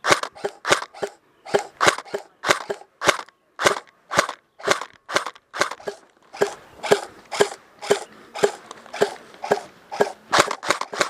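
Airsoft gun firing shot after shot in quick semi-automatic pops, about two a second at an uneven pace.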